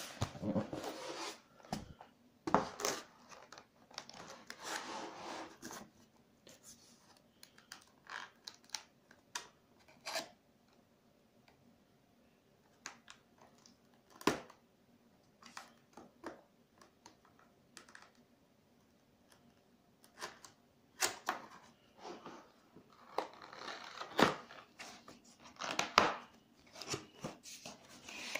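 Cardboard keyboard box being handled and opened: irregular scrapes, rubbing and rustles of cardboard with scattered sharp knocks. It is busy at the start, quieter in the middle, and busy again near the end.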